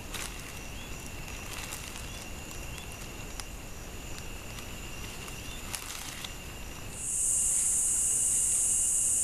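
A loud, steady, high-pitched insect buzz starts abruptly about seven seconds in. Before it there is quieter forest ambience: a thin steady high whine and scattered faint clicks.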